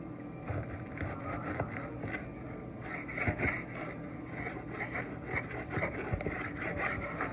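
Knife slicing a tomato on a cutting board: irregular soft scrapes with light taps of the blade on the board.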